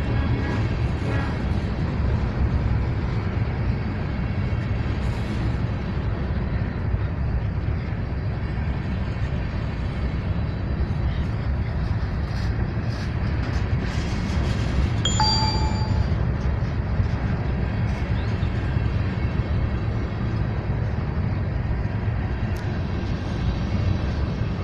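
Freight train rolling past: a steady low rumble of wheels on the rails, with one brief high metallic ring about fifteen seconds in.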